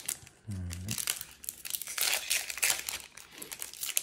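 Foil wrapper of a Yu-Gi-Oh! booster pack crinkling and tearing as it is opened by hand, with a short low hum about half a second in.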